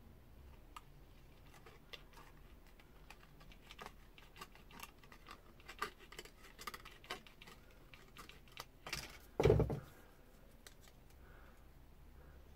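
Aviation tin snips cutting a strip of heavy metal tape: a run of small crisp snips and clicks, then one louder thump near the end.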